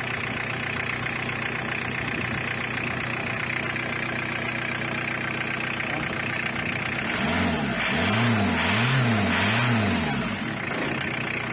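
Car engine idling, then revved three times in quick succession about seven seconds in, settling back to idle. The owner complains that the whole engine vibrates at idle even after all three engine mounts were replaced.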